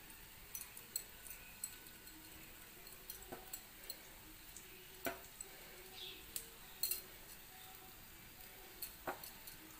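Light, irregular clicks and scrapes of a steel spoon against a nonstick paniyaram (appe) pan as batter is spooned over the stuffing balls in its cups.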